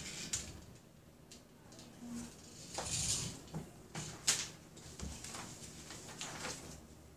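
Scattered light knocks and clicks of wooden shape pieces handled on a wooden puzzle board and tabletop, with paper rustling as pages of a manual are turned. The sharpest knock comes about four seconds in.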